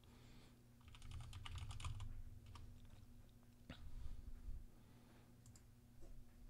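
Computer keyboard typing, faint: a quick run of about ten keystrokes about a second in, then a few single clicks, over a faint steady low hum.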